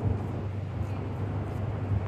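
Tennis rally: a ball struck by a racket at the start and again near the end, about two seconds apart, over a low steady hum.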